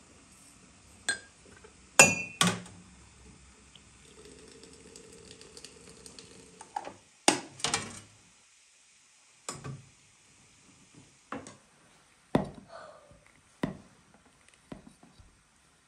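Glass teapot, tea glasses and china plates clinking and knocking on a wooden table: a dozen or so separate sharp clinks, one ringing briefly about two seconds in. A faint steady hum sits under the middle few seconds.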